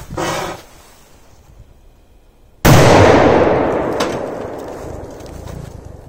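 A large Monster firecracker exploding inside a gutted washing machine, about two and a half seconds in. It is one sharp, very loud bang whose echo dies away over about three seconds. The blast tears the machine's side panel off.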